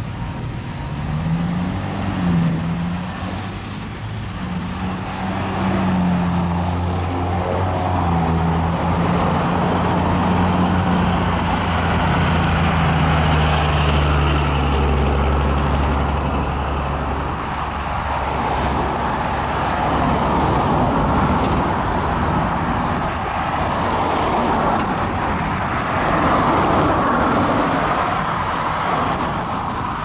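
Road traffic: a motor vehicle's engine runs low and heavy over the first half, its pitch rising and falling as it pulls away, then gives way to the steady noise of cars passing.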